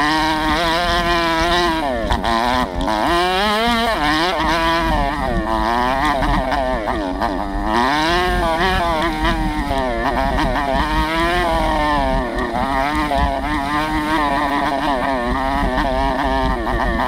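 A Chinese 125cc four-stroke dirt bike engine running hard, its revs rising and falling over and over as the throttle opens and closes.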